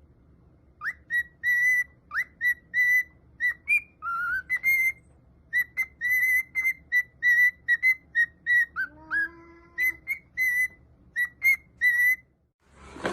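A quick series of short, high, whistle-like squeaks, about two or three a second and nearly all on the same pitch, many swooping up into the note. About nine seconds in, a lower drawn-out tone slides in and holds for about a second.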